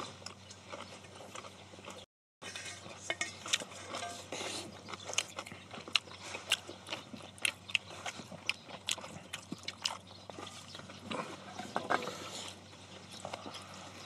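Close-miked eating sounds: chewing and crunching of lettuce-wrapped stir-fried pork, with chopsticks clicking against stainless steel bowls in many short, sharp clicks. The sound cuts out briefly about two seconds in.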